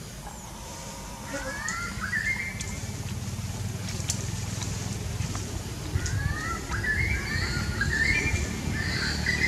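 A bird calling in runs of quick rising notes, once starting about a second in and again from about six seconds on, over a steady low rumble.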